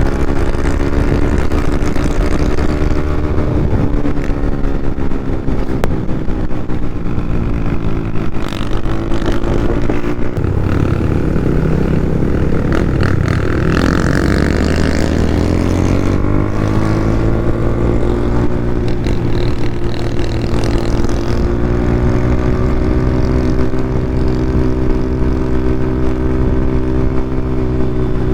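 Yamaha Sniper 150's single-cylinder four-stroke engine running loudly through an open EXOS R6 exhaust with no silencer. The engine speed dips, climbs to a peak about halfway through, and then settles into a steady pitch for the last third.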